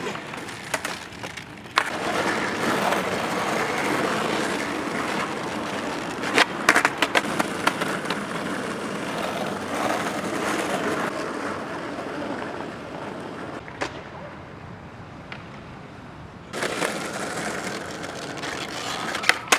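Skateboard wheels rolling on pavement, a steady rough rumble, as a rider goes down a hill. Sharp clacks from the board come about a third of the way in and once more past two-thirds, and the rolling grows fainter in the second half before picking up again near the end.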